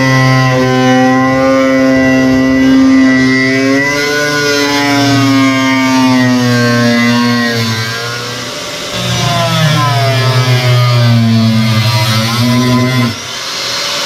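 Angle grinder with a cutoff wheel cutting the sheet-steel floor pan of a 1960 Chevrolet Impala. Its motor whine sags and rises in pitch as the disc loads up in the cut. The sound dips a little past halfway and drops off suddenly near the end.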